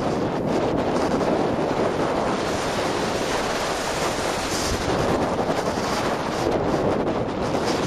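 Steady rush of wind buffeting the microphone of a camera carried by a skier descending a groomed piste at speed, mixed with the hiss of skis carving on packed snow. A brief sharper hiss about halfway through.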